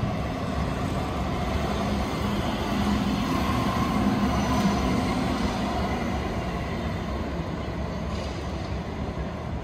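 A tram running along street tracks: a steady rumble of wheels and running gear on the rails.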